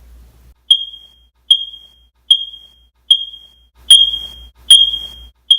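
Smoke alarm beeping: seven short, piercing high-pitched beeps in a steady rhythm, a little under a second apart, starting just under a second in.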